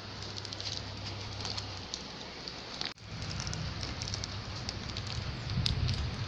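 Handling noise: a plastic bag crinkling with scattered short clicks as the crepe rolls on it are handled, over a low rumble from the phone being moved. The sound cuts out briefly about three seconds in.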